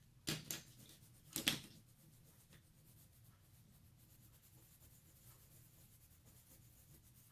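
Coloured pencil working on paper: two short, louder scratching strokes in the first two seconds, then only faint pencil sounds.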